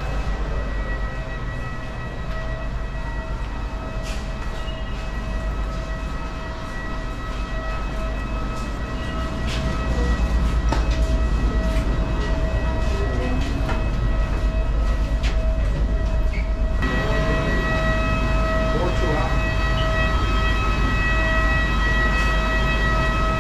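Steady rumble and high, even whine of a parked Airbus A320 and its gate machinery, heard from the boarding bridge. It grows louder about ten seconds in, and the whine gets stronger near the aircraft door. A few footsteps and clicks.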